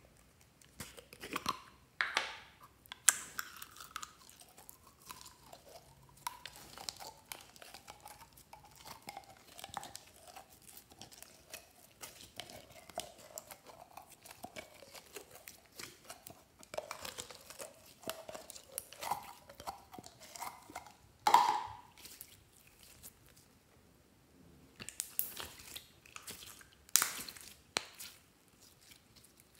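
Glossy slime being pulled and stretched by hand: a steady run of small sticky crackles and squelches, with a few louder pops.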